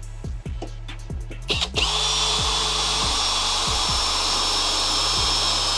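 Electric drill starts about a second and a half in and runs at a steady high whine, boring a hole in scrap metal C-channel with a bit that is blunt. Background music with a beat plays underneath.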